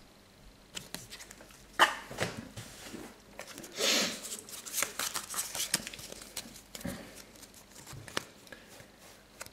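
Trading cards being handled: cards slide and flick against each other with scattered light clicks, and there is a brief rustle about four seconds in.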